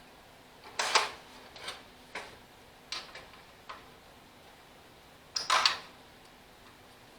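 Tools and metal parts being handled during work on a lawn tractor: a scattered run of short, sharp clicks and clatters. The loudest clatters come about a second in and again past the middle.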